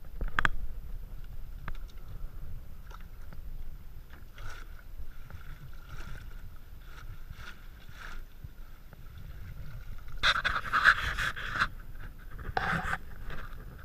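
A wire-mesh fish trap tipped off a dock's edge into the sea, hitting the water sharply about half a second in, then scrapes, knocks and water sloshing as it is handled and sinks. A louder, longer stretch of splashing and rattling comes about ten seconds in, and a shorter one near the end.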